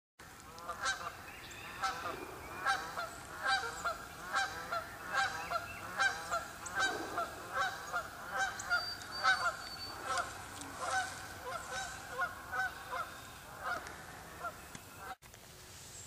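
Canada geese honking over and over, a little more than one call a second, with the calls of more than one bird overlapping. The honking cuts off suddenly near the end.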